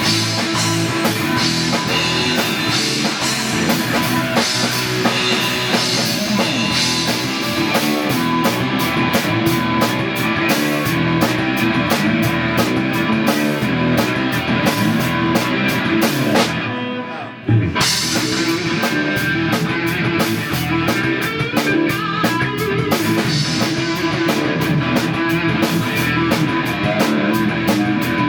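Rock music with a drum kit and guitar playing steadily. A little past halfway it cuts out for about a second, then comes back in on a sharp hit.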